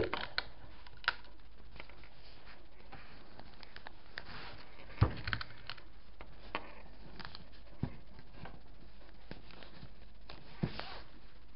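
Scattered small clicks and taps with faint paper and fabric rustle as pins are picked out of a plastic pin dish and pushed through a paper pattern into folded fabric. The sharpest tap comes about five seconds in.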